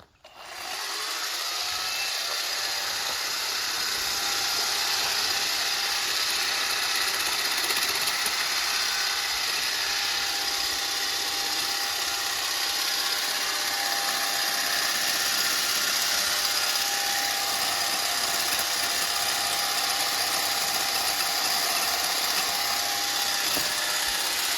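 60 V lithium-battery cordless brush cutter's electric motor spinning up just after the start and then running steadily at full speed, a continuous high whine.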